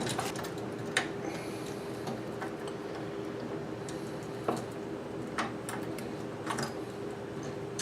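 Small screwdriver working the screws out of a drone's plastic propeller guard mount: a few scattered light ticks and clicks at uneven spacing, over a steady faint hum.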